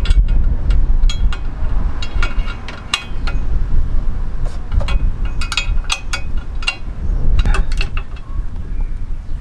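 Irregular metallic clinks of hand tools on the steel bolts and bracket of a diff guard as it is bolted up under the axle, over a steady low rumble.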